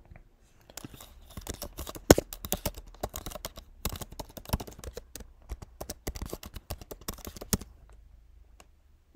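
Typing on a computer keyboard: a quick, uneven run of keystrokes starting about a second in and stopping after about seven seconds, then a single click near the end.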